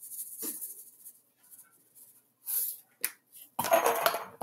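Garlic seasoning shaken from a spice jar into a plastic mixing bowl, as a soft hiss of shaking. A few small knocks and clicks follow, then a louder rustle of handling near the end.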